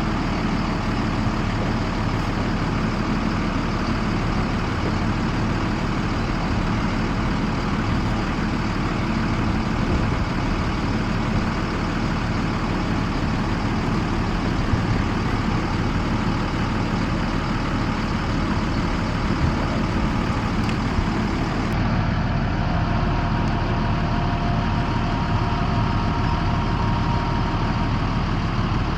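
School bus engine idling steadily.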